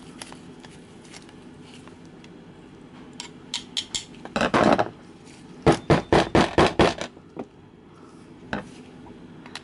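Flathead screwdriver working at the main jet of a Honda GCV160 carburetor, metal on metal: scattered clicks and a short scrape, then a quick run of about eight sharp taps a little past the middle, and one more tap near the end. The jet is stuck in the gunked-up carburetor.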